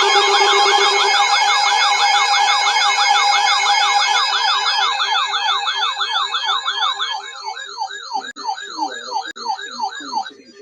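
Electronic siren-type alert tone warbling rapidly, about four rising-and-falling sweeps a second. A steady lower tone sits under it for about the first second, and the warble fades away over the last few seconds.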